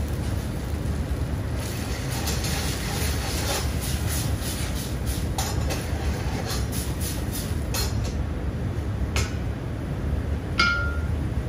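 Red onions cooking in a stainless steel sauté pan, stirred and scraped with a wooden spoon in a run of short knocks, over a steady low kitchen rumble. Near the end there is one sharp clink with a brief ring.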